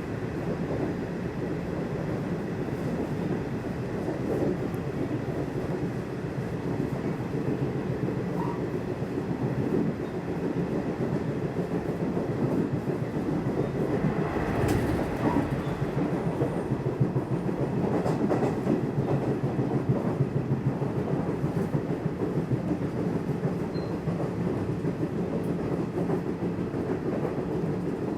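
Nishitetsu Tenjin-Ōmuta Line electric train running, heard from inside the carriage: a steady rumble of wheels on rail, with clicks over rail joints and a sharper knock about halfway through.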